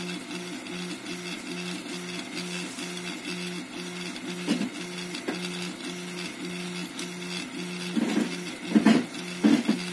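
Home-built CoreXY 3D printer's stepper motors whining as it prints, in short repeating tones that change pitch about three times a second as the print head makes short back-and-forth moves. A few louder knocks near the end.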